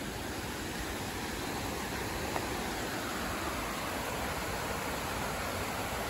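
Mountain stream rushing over rock slabs at a small cascade: a steady rush of water that grows slowly louder.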